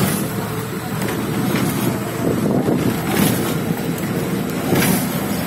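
Steady noise of a vehicle travelling across a bridge, mixed with wind buffeting the microphone.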